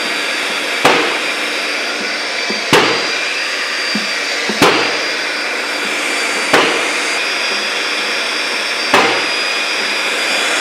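Hydraulic press pump running steadily under load as the press pushes a drive shaft out of its gear. Five sharp knocks come at about two-second intervals.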